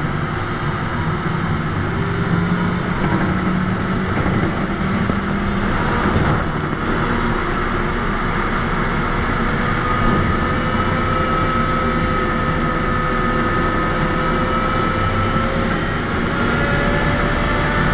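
Cabin noise inside a moving Belkommunmash BKM-321 trolleybus: the electric traction drive's whine, rising slowly in pitch through the second half, over steady road and running noise.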